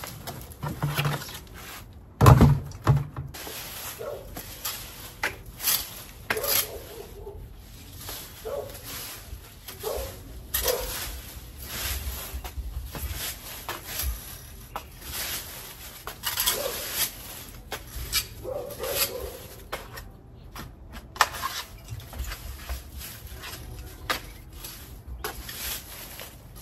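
A garden rake scraping and rustling through dry fallen leaves in repeated strokes, about one a second, with a single loud thump about two seconds in.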